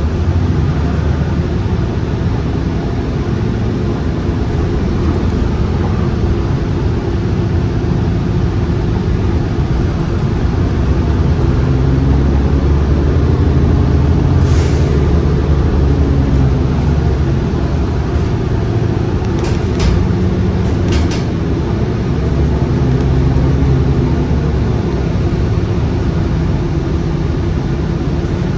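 A Gillig Low Floor transit bus running along the road, heard from inside the passenger cabin: a steady low engine and road drone whose engine note rises and falls a couple of times as the bus changes speed. A few short sharp rattles or clicks come a little past the middle.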